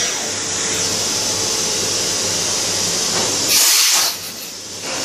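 Steady hiss from inside a Leadwell V-50L vertical machining centre's enclosure with the spindle stopped, with a louder burst of hiss about three and a half seconds in.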